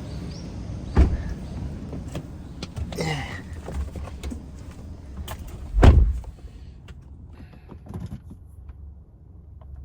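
Car door being handled as someone gets into a taxi: a knock about a second in, then the door shutting with a heavy thud about six seconds in, over a low rumble.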